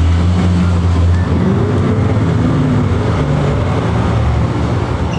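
City bus running, heard from inside the passenger cabin: a steady low engine drone with road and body noise over it.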